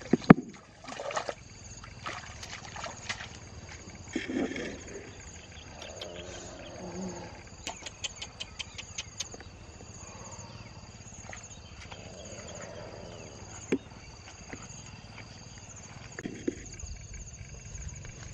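Insects trilling steadily in grass and bushes. Over them come a sharp knock near the start and a quick run of clicks about eight seconds in.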